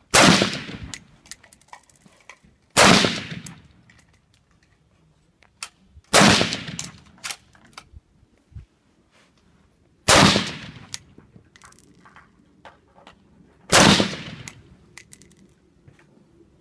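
AR-15 rifle fired from a bench rest, single shots spaced a few seconds apart: five loud reports, each trailing off in an echo, with faint clicks and knocks between shots.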